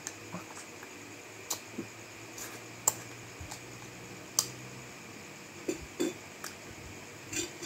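Light clicks and clinks of plates, bowls and spoons being handled while eating, about ten scattered ones, the loudest a little under three seconds in and just after four seconds. A faint steady hum lies underneath.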